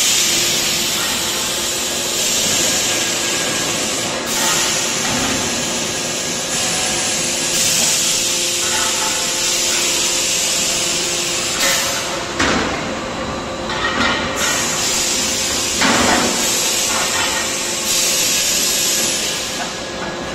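Steel wheel rim roll forming machines running: a steady motor hum under loud hissing that starts and stops in spells of a few seconds.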